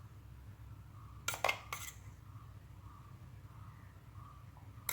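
Light clinks of a kitchen utensil against a dish, three in quick succession about a second in and one more at the very end, over a faint low hum.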